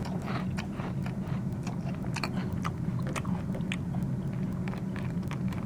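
Someone chewing a crunchy cheese puff snack: a run of crisp, irregular crunches over a steady low hum.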